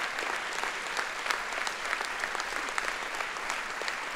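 Audience applauding steadily: many hands clapping at an even level, with no break.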